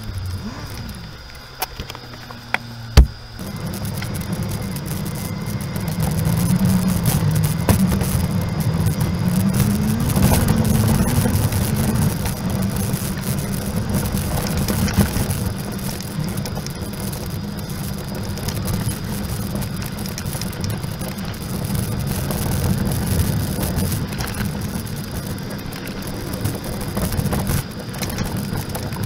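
Suzuki Grand Vitara 4WD driving up a rough dirt track: a steady low engine and tyre drone that gets louder after a sharp knock about three seconds in.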